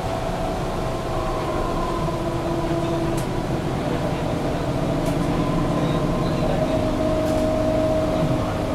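Mercedes-Benz O530 Citaro city bus on the move, heard from on board: a steady diesel engine and drivetrain rumble with whining tones from the ZF Ecomat automatic gearbox. It grows a little louder in the second half.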